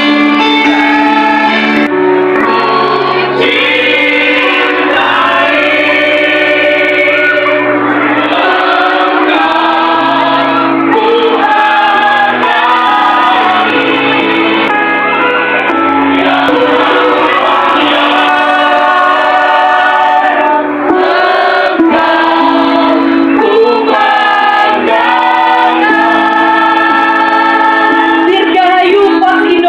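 A choir of voices singing a song together with musical accompaniment, with long held notes.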